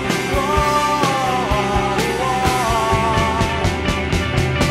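Indie rock song playing: drums and bass under a lead melody that slides between notes, repeating in phrases about two seconds long.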